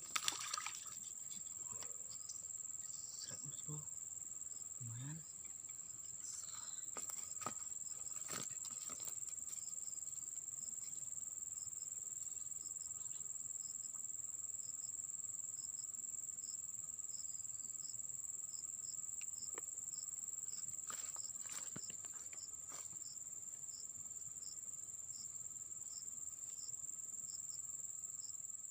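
Insects, such as crickets or cicadas, trilling in a steady high drone, with a second insect giving short, regular chirps, roughly one every two-thirds of a second, from about a third of the way in. A few faint clicks and knocks.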